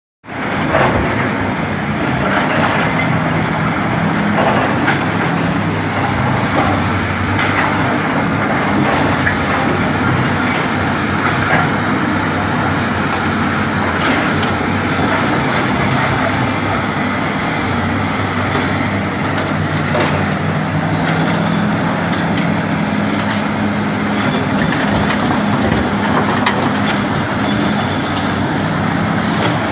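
Large SANY SY365H excavator running steadily, its diesel engine note rising and falling a little at times, with occasional short knocks and clanks.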